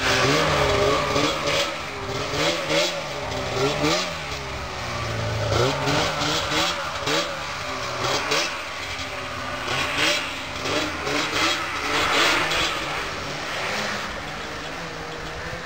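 Snowmobile engine revving up and down over and over as the sled is ridden through deep snow.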